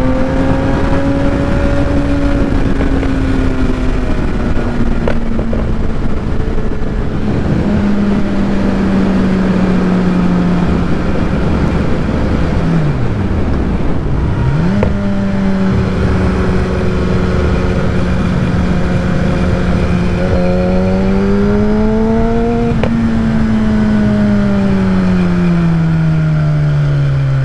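Kawasaki ZX-10R's inline-four running through a Graves titanium full race exhaust at road speed, with wind rushing over the microphone. The engine note holds mostly steady, drops and climbs back about halfway through, and falls away near the end as the bike slows.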